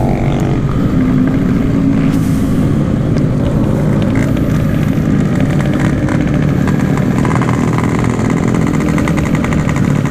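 Yamaha RX-King's 135 cc two-stroke single-cylinder engine running under way through a stock-look aftermarket exhaust, held at fairly steady revs.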